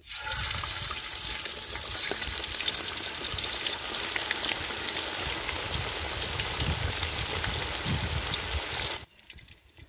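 Marinated chicken pieces deep-frying in hot oil: a dense, steady sizzle with many small crackling pops. It cuts off suddenly near the end.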